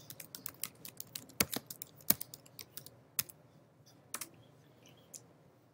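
Typing on a computer keyboard: a quick run of keystrokes over the first two seconds, then a few scattered single key presses.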